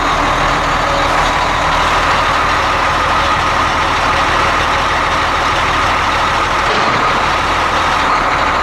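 Volumetric concrete mixer truck's engine running steadily at raised revs, about 1200 RPM, with the PTO engaged to drive the mixer. The sound is loud and even, with a steady hum.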